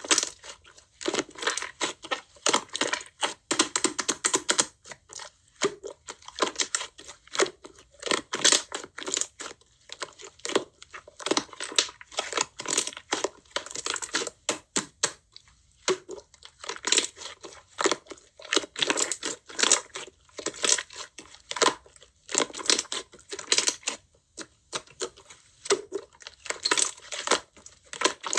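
Slime being squished, pressed and stretched by hand: a fast, irregular run of crackling, popping clicks with short pauses between handfuls.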